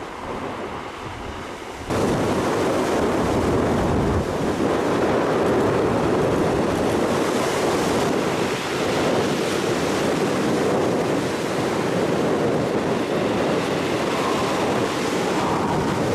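Sea waves breaking and washing up a pebble beach in strong wind, with wind buffeting the microphone. The sound steps up louder about two seconds in.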